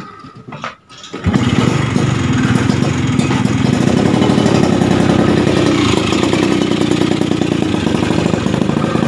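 Motorcycle engine starting about a second in, then running steadily with a rapid even beat.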